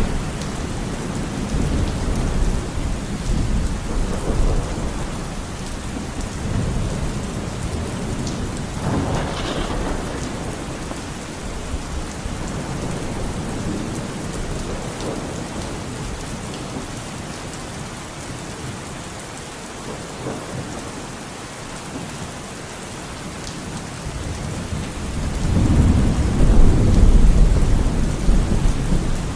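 Steady rain falling with rolling thunder: low rumbles in the first few seconds, and a louder roll of thunder building from about 25 seconds in.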